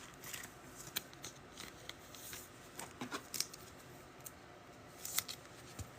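Trading cards being handled and sorted: scattered faint clicks and short rustles of card stock sliding and tapping, with a slightly louder pair of ticks a little after five seconds.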